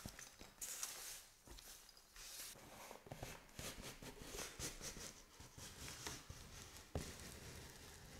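Faint rustling and scraping of cardboard and foam packaging as a foam-wrapped box is slid out of a cardboard box by hand, in many short strokes with a soft knock near the start and another near the end.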